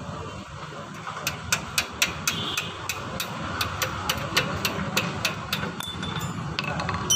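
A run of sharp metal taps, about four a second for several seconds, from a metal rod tapping against a welded metal joint, over a steady low hum.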